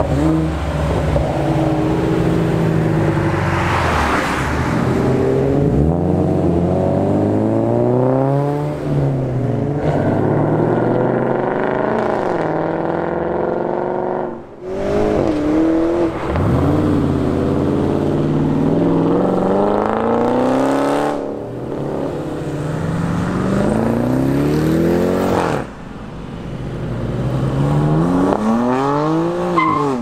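Performance car engines accelerating hard, one after another. Each engine's pitch climbs and then falls back at each gear change.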